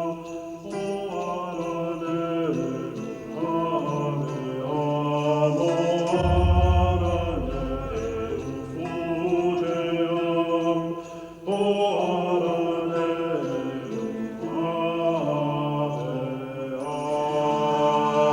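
Music with slow, sustained chant-like chords that change every couple of seconds, and a deep low note coming in about six seconds in.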